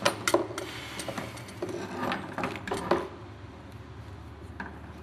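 Clicks and knocks of the plastic and metal parts of an electric wet polisher being handled and fitted together by hand, busy for the first three seconds and then fading to a low steady hum.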